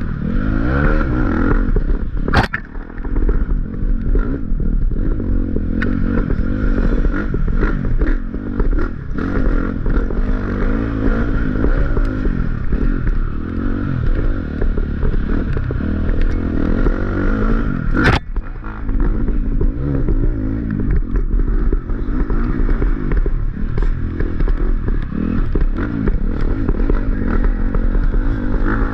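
Off-road dirt bike engine being ridden hard, its revs rising and falling constantly with throttle changes, along with rattling and scraping from the bike. Two sharp knocks stand out, one a couple of seconds in and another a little past the middle.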